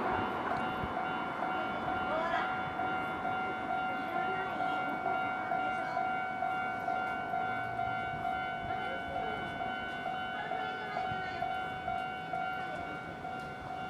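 Japanese railway level-crossing warning bell ringing in an even, repeating rhythm. A passing train's rumble fades out about a second in.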